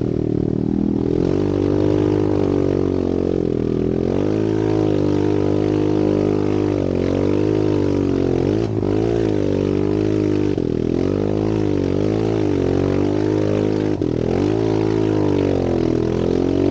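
Trail motorcycle's engine running as the bike is ridden along a rough dirt track, the revs rising and falling over and over as the throttle is worked, with brief drops around the middle and about two-thirds of the way in.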